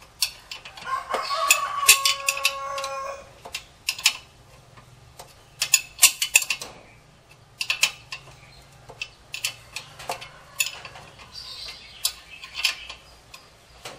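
Irregular sharp metallic clicks and clinks of a wrench on the bolts of a car's front brake and hub assembly. About a second in, a steady high tone with overtones sounds for about two seconds.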